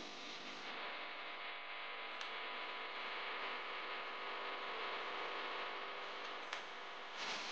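Minced beef and onion sizzling in a non-stick frying pan, with a wooden spatula stirring it and clicking against the pan twice and scraping louder near the end.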